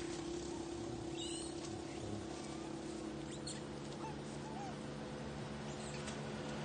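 A steady low engine hum, with a few short, high animal chirps and squeaks over it.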